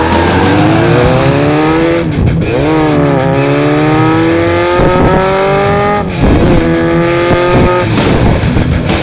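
Motorcycle engine accelerating hard through the gears, its pitch climbing and then dropping at each shift, about three times. Heavy metal music with a steady drum beat plays over it.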